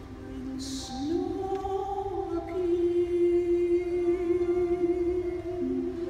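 Soprano singing with orchestral accompaniment: a sibilant consonant, then a phrase that glides up about a second in into a long held note with vibrato.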